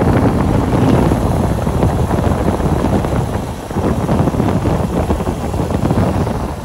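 Wind buffeting the microphone at road speed, with the motorcycle taxi's engine running beneath it.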